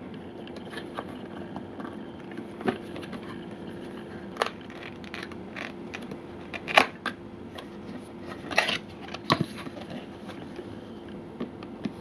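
Cardboard product box handled and turned in the hands: scattered crackles and taps as the cardboard flexes under the fingers. The loudest comes about seven seconds in, with a cluster just after, over a steady low hum.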